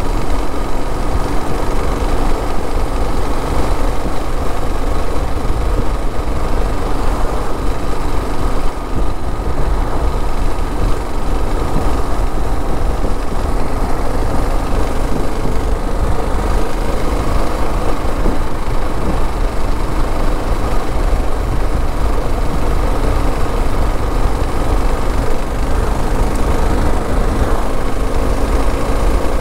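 Motorcycle cruising at highway speed: a steady rush of wind noise on the GoPro mixed with the drone of the engine.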